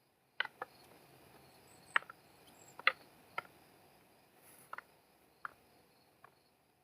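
Flow sticks (devil sticks) being played: a handful of light, irregular taps as the hand sticks strike the centre stick.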